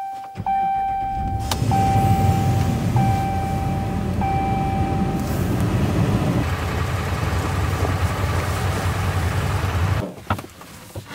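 Pickup truck engine started from cold in extreme cold, then running steadily. A dashboard warning chime sounds in about five long, even tones over the first five seconds.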